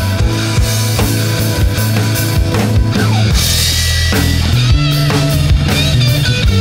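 Rock music with a full drum kit, a steady bass line and guitar; about four seconds in a lead guitar line with bent notes comes in.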